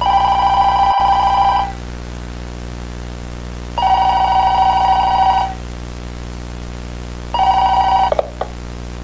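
Telephone ringing three times, about two seconds apart. The first two rings last about a second and a half each, and the third is cut off short, over a steady low hum.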